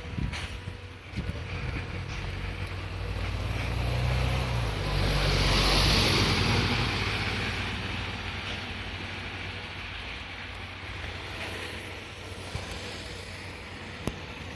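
Train propelled by steam locomotive C11 325 rolling slowly past: a low rumble and hiss that build to a peak about six seconds in, then fade.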